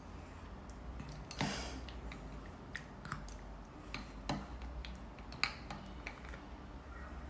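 Metal spoon clinking against a cut-glass bowl and ice cubes in fruit punch: scattered sharp clicks, with a brief louder rush of noise about one and a half seconds in.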